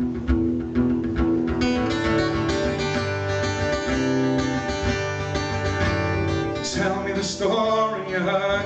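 Instrumental introduction to a live folk song, with a string instrument playing pitched notes throughout and a singing voice coming in near the end.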